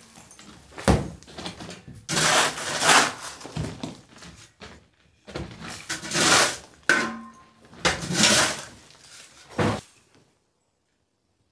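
A sledgehammer strikes stone about a second in. A steel shovel then scrapes and scoops broken stone and plaster rubble off a floor in three long strokes, with another sharp knock near the end.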